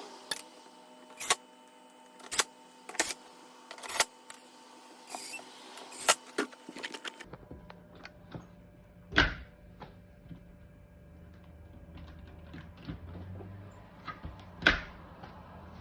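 Sharp clicks and knocks of screws and plastic parts being handled while a Samsung dishwasher's inner door panel is put back on, with two louder thuds later on.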